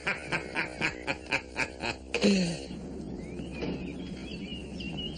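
A man laughing heartily in quick rhythmic bursts, about four a second, for two seconds. Then faint bird chirps over a steady background hum.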